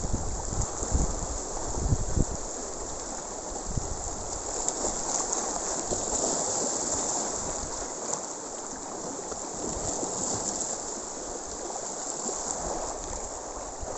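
Sea water washing over shoreline rocks at high tide: a steady rush of surf, with a few low thumps in the first four seconds.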